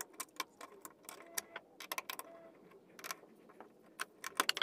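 Rapid, irregular light clicks and small rattles of hard objects being handled, with a tight cluster of louder clicks near the end.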